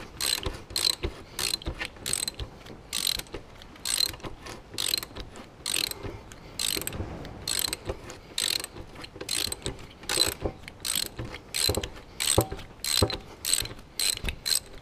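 Hand socket ratchet clicking in short quick runs, about two a second, as the handle is swung back and forth to wind out a bolt.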